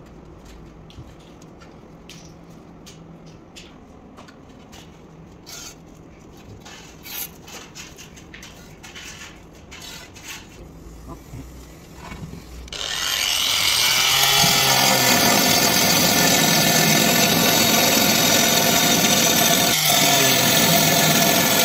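Light clicks and scratches while the tile is marked out with a pen, then about 13 seconds in an angle grinder fitted with a diamond core bit spins up and runs loud and steady, grinding a round hole through a ceramic tile.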